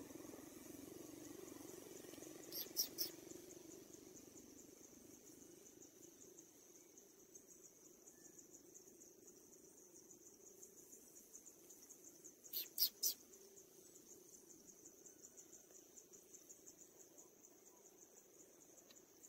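Faint, steady, high-pitched insect trill, cricket-like and fast-pulsing, over a faint low hum. Twice, about ten seconds apart, a quick run of two or three sharp high clicks or chirps stands out as the loudest sound.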